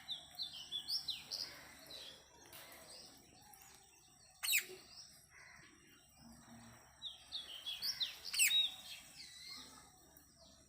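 Parrot chirping in quick runs of high chirps, with two louder, sharp calls, one about four and a half seconds in and one about eight and a half seconds in.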